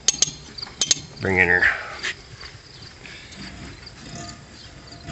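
A few sharp metallic clicks in the first second as the newly fitted sharpening stone of a forage chopper's knife sharpener is wound in toward the knives, followed by faint scraping and ticking.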